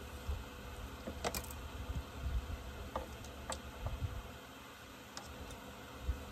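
Scattered light clicks and taps of a small screwdriver and metal parts as a chainsaw is worked on by hand at the bar and chain, over low bumps of handling. The sharpest click comes about a second in.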